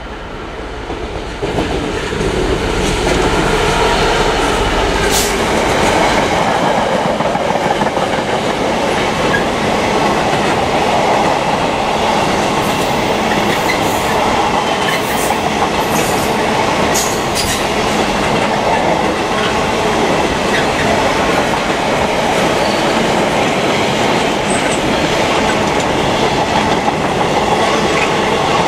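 Class 66 diesel-electric freight locomotive passing at speed, followed by a long rake of container flat wagons rolling by with a steady wheel rumble and clickety-clack over the rail joints. The sound grows loud about a second and a half in as the locomotive arrives. Brief high squeals and clicks from the wheels come now and then around the middle.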